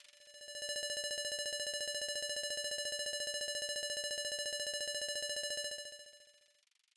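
A single steady synthesizer note with a fast, even flutter in its loudness, swelling in over the first second and fading out about six seconds in.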